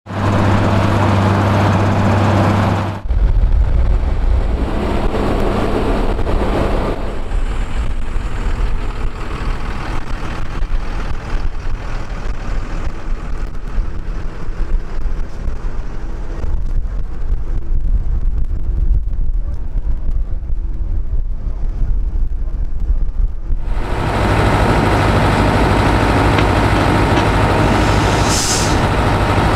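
Heavy diesel farm machinery running steadily in a potato field, in several edited shots: a tractor hauling a loaded trailer, then a field loader's engine running. A brief hiss comes near the end.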